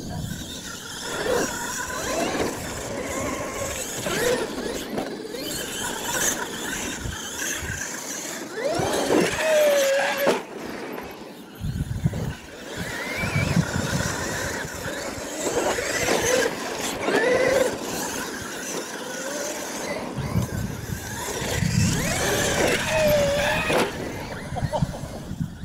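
Electric RC monster truck's motor whining, rising and falling in pitch again and again as it speeds up and slows, with its tyres hissing on loose dirt.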